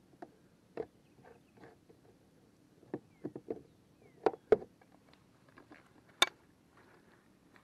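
Scattered clicks and knocks of hard plastic kayak gear being handled: a few light taps, two stronger knocks about four and a half seconds in, and the loudest, sharpest click about six seconds in.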